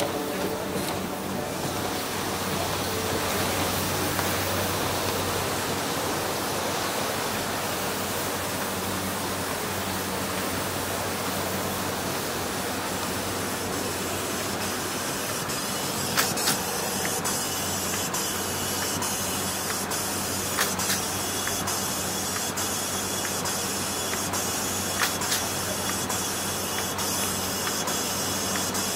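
Sheet-fed varnishing machine running in production: a steady air hiss over a low hum, with a few sharp clicks in the second half.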